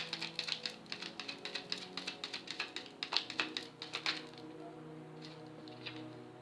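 Tarot cards being shuffled: a rapid run of crisp card clicks for about four seconds, thinning to a few separate clicks, over soft sustained background music.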